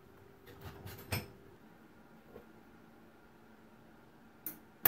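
A few light clicks and knocks of handling over a faint steady hum, a short burst of noise about half a second before the end, then a MIG welder's arc starts up loudly right at the end.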